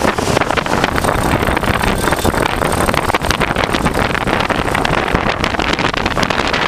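Strong wind buffeting the microphone aboard a sailboat under way, a loud, steady, gusting rush.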